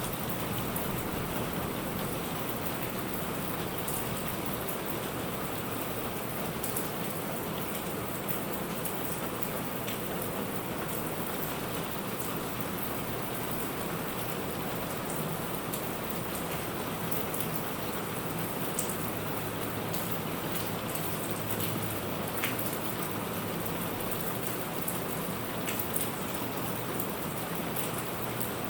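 Steady rain falling and pattering on surfaces, with scattered sharp drop hits.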